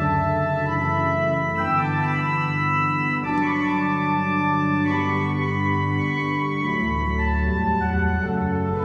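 Church organ playing slow, sustained chords that change every second or so, with deep pedal bass notes entering about seven seconds in.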